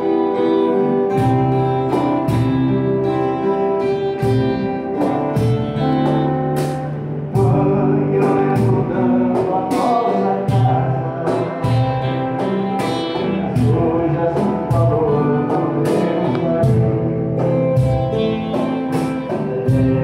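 Acoustic guitar strummed in a steady rhythm with cajón beats and a voice singing: a sertanejo song played live by a small group.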